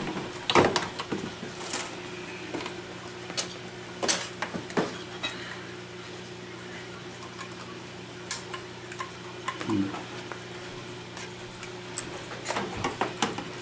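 Scattered light clicks and small rattles of hands handling wires, plastic connectors and a metal speaker bracket on a disassembled LCD TV's sheet-metal chassis, over a steady low hum.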